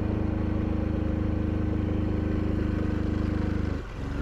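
Honda Super Cub 90's air-cooled single-cylinder four-stroke engine labouring up a steep grade in second gear at a steady pitch, then cutting out suddenly near the end as it runs out of power and stalls.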